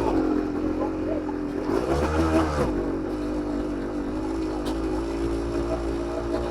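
1991 Suzuki TSR 125's two-stroke single-cylinder engine running at a steady idle, with one short rev about two seconds in.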